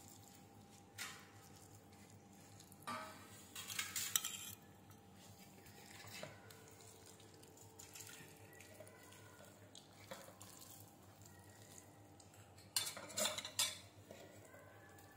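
Steel serving spoons and stainless steel vessels clinking and scraping in a few short clusters. The loudest come about four seconds in and again near the end, over a faint steady hum.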